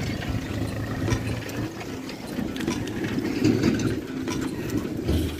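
A bicycle ridden over a rough dirt road, its frame, basket and chain rattling and clicking, with a low steady hum underneath.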